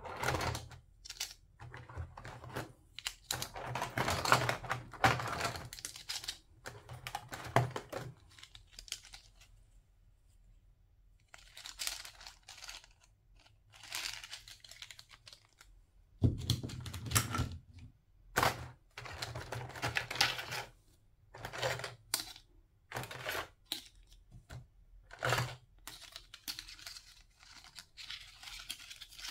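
Hard plastic toy food pieces clicking and clattering against each other, with a clear plastic blister tray crinkling, as they are lifted out and handled. The sound comes in irregular bursts, with a short lull about a third of the way through.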